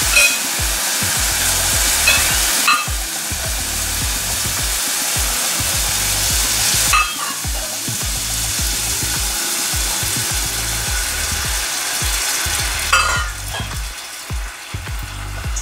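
Chicken broth poured onto basmati rice toasted in hot oil, sizzling and hissing loudly in the pot. The sizzle eases about thirteen seconds in.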